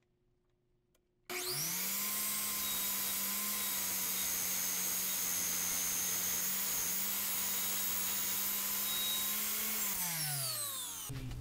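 A miter saw's electric motor switches on about a second in with a quick rising whine, runs steadily and loudly, then winds down with a falling whine near the end.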